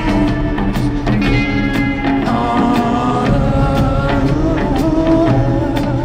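Live band playing the instrumental opening of a song, heard from the audience: held pitched tones over a steady beat.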